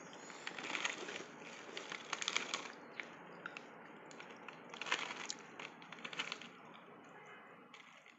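Chocos Fills, crunchy chocolate-filled cereal pillows, being crushed: a continuous crackling crunch, with louder clusters of cracks about a second in, two seconds in and around five seconds.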